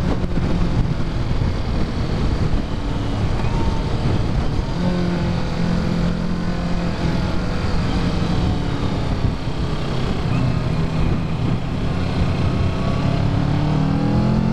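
2017 Kawasaki Ninja 650's parallel-twin engine on its stock exhaust running under way, under heavy wind rush on the microphone. The engine note climbs near the end as the bike accelerates.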